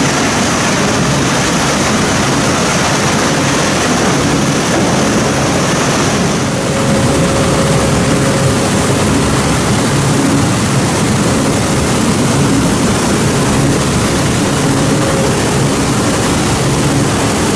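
Industrial plastic film shredder and its conveyors running: a loud, steady machinery din, with a faint high whine that stops about six seconds in.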